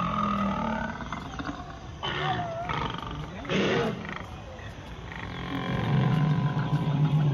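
Recorded dinosaur roar played from an animatronic dinosaur's loudspeaker: a deep, drawn-out roar that fades about a second in and starts up again about five and a half seconds in, with two short noisy bursts in between.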